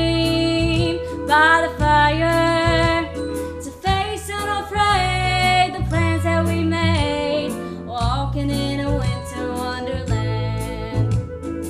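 Music: a sung song with instrumental backing, with a female voice carrying the melody over steady bass notes.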